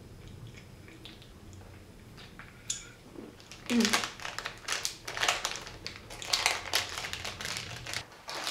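Plastic snack packaging crinkling as it is handled: a dense run of crackles starting about three and a half seconds in.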